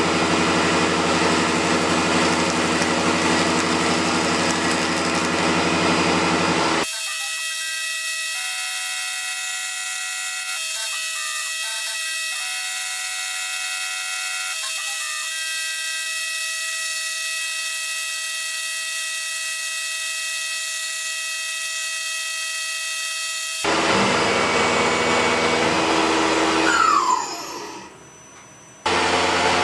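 CNC milling machines cutting metal, with a steady spindle whine made of several high tones over the machining noise. The sound changes abruptly twice as the clips change. Near the end a whine falls in pitch and the sound drops away.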